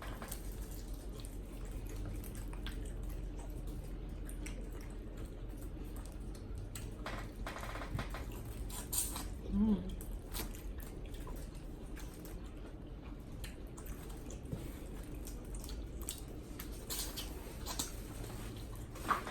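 Close-up eating of a saucy seafood boil: scattered short wet smacks, sucks and clicks from mouths and sticky fingers, over a steady low hum.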